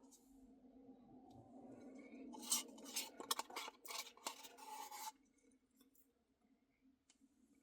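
A spoon scraping and rasping against a cup in a quick run of strokes, starting about two seconds in and lasting about three seconds, over a low steady hum.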